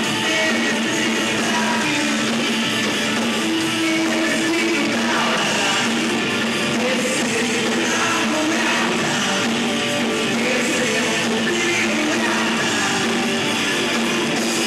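Live rock band playing, with electric guitar to the fore.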